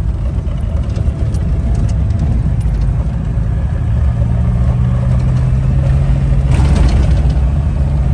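Safari jeep's engine running while driving, heard from on board, with a low rumble; the engine settles into a steady hum about halfway through, and a brief rush of noise comes near the end.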